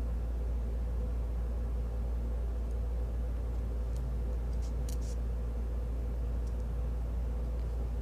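Steady low background hum with a few faint light clicks about halfway through.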